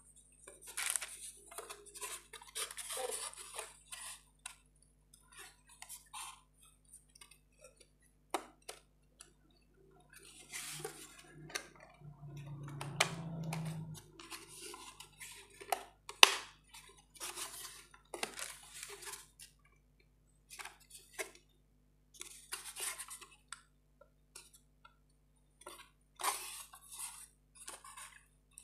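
Thin 2.5 mm plywood panels being handled and slotted together by hand: irregular light scrapes, taps and clicks of wood on wood, with one sharper click a little past the middle.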